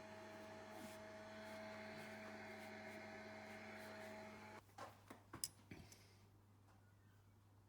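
Wood lathe motor running with a steady hum, switched off about four and a half seconds in, followed by a few light knocks and clicks.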